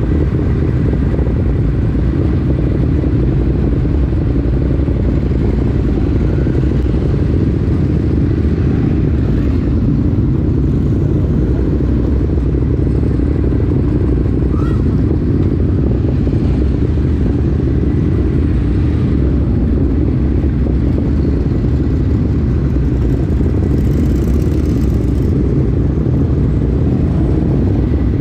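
Ducati Monster motorcycles' L-twin engines running steadily on a parade ride, loud and even, with no revs rising or falling.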